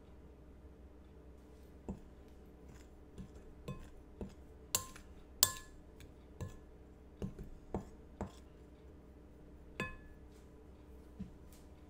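A utensil stirring flour and spices in a glass mixing bowl, clinking against the glass about a dozen times at uneven intervals. Each knock leaves the bowl ringing briefly, and the loudest comes about five seconds in.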